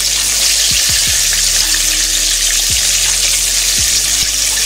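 Flour-coated chicken pieces deep-frying in hot oil in a Presto deep fryer: a steady, dense, hissing sizzle of bubbling oil.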